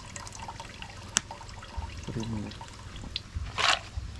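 Wet splashing and dripping as a hand works boiled palm-nut pulp in water in a wooden mortar and palm-nut juice drains from a colander into a pot. Small wet ticks run throughout, with a sharp click about a second in and a brief louder splash near the end.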